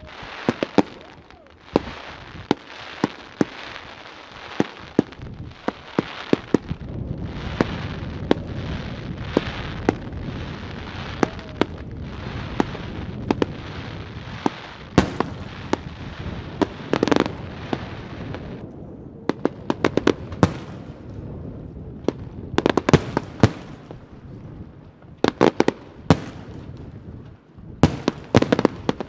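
Aerial fireworks display: a rapid series of sharp bangs from bursting shells, over a continuous crackling hiss. About two-thirds of the way through the hiss drops away, and the bangs come in separate quick clusters.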